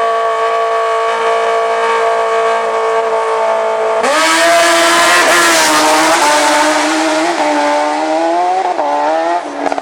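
A motorcycle engine held at steady high revs. About four seconds in, a sudden rush of noise comes in and the engine note drops and wavers as it pulls away.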